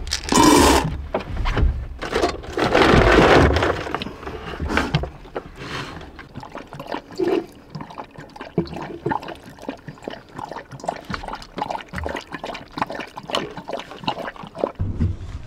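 Liquid poured into a stainless steel dog bowl in two short rushes, followed by a springer spaniel lapping from the metal bowl: a long run of quick, irregular clicks and licks.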